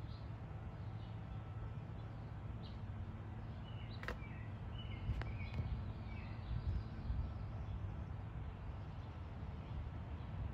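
Outdoor backyard ambience: scattered short bird chirps over a low steady rumble, with two sharp clicks about four and five seconds in.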